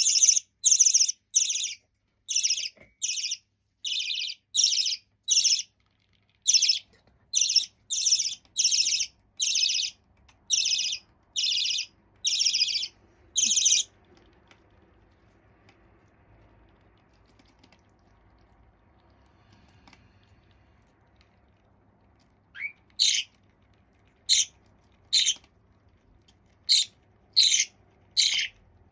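Half-jumbo budgerigar chick calling repeatedly in short, raspy cries, about two a second. It falls quiet about 14 seconds in, and starts calling again, more slowly, a few seconds before the end.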